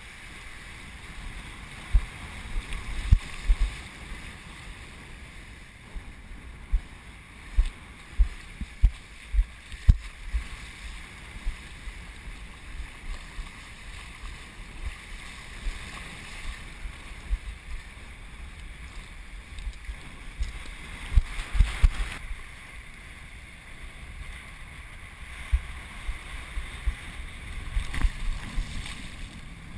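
Wind buffeting the microphone of an action camera in irregular low thumps, some of them sharp, over the steady hiss and wash of shallow surf.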